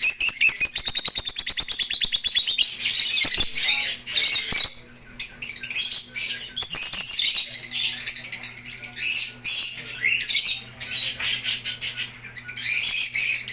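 Lovebirds, small parrots, chattering with rapid high-pitched chirps. A fast run of chirps comes in the first two seconds, and the chatter continues with short pauses.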